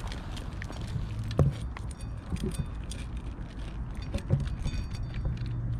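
Cats eating dry kibble from stainless-steel bowls: quick crunching and clicking of kibble and teeth against the metal, with two louder knocks on a bowl, about a second and a half in and again past four seconds. A low steady hum runs underneath.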